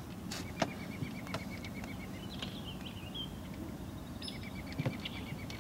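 A bird trilling twice, each trill a quick run of about ten short, even notes a second, with a few chirps between them. A few light knocks sound early on top of a steady low background rumble.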